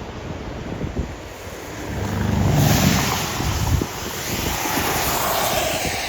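Strong tornado winds rushing and buffeting the microphone, with a steady surf-like roar from the nearby tornado that swells about two seconds in, along with heavy low gusts.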